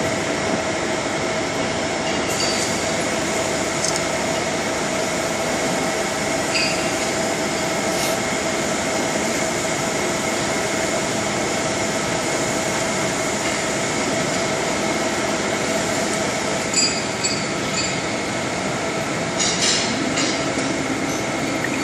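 Steady drone and hiss of workshop machinery running, with a few fixed tones in it, and a few short clicks and clatters near the end.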